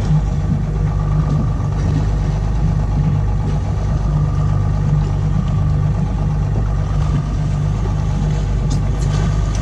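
Boat engine idling with a steady low hum and a faint whine above it.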